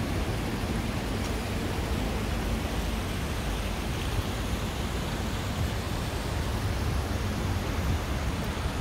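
Steady rushing of stream water flowing over rocks: an even hiss with no separate splashes or breaks.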